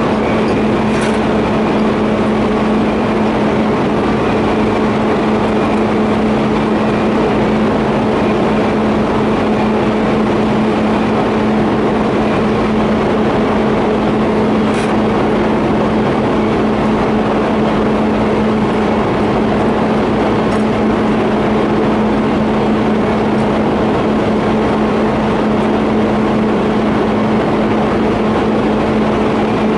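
TIG welding arc running steadily on a 50A pipe flange-to-elbow joint: a continuous buzzing hiss over a constant low hum, with a few faint ticks.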